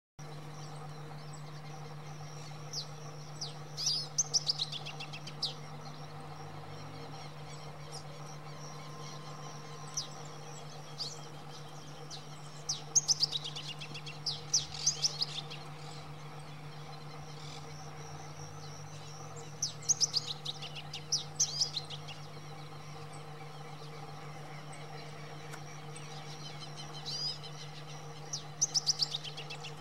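Male masked yellowthroat singing: four songs spaced roughly seven seconds apart, each a quick run of high, warbled notes lasting one to two seconds.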